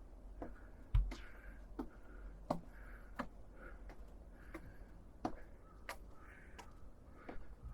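Footsteps on a mountain path, a sharp step about every 0.7 seconds with a heavier thump about a second in, and the walker's breathing between the steps.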